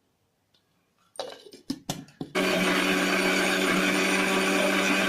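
A few knocks, then an electric mixer grinder's motor starts about two seconds in and runs steadily at full speed, grinding boiled spinach leaves into a purée.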